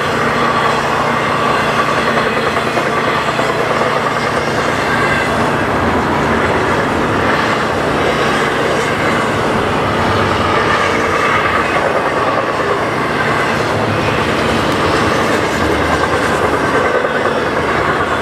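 Double-stack intermodal freight cars rolling past at speed: a steady rumble and clatter of steel wheels on rail, with thin high wheel-squeal tones running through it.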